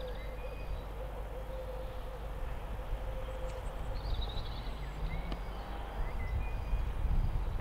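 Outdoor ambience: faint birds chirping now and then over a low, steady rumble.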